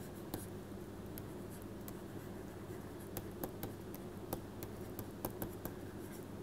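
Stylus tapping and scratching on a tablet screen during handwriting: a scatter of light, sharp clicks, most of them in the second half, over a steady low electrical hum.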